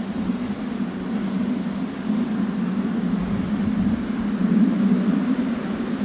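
A steady low engine drone with a faint hiss above it, swelling a little near the end.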